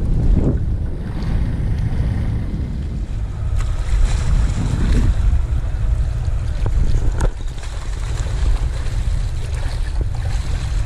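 Wind buffeting the microphone in a steady low rumble, with a couple of faint ticks.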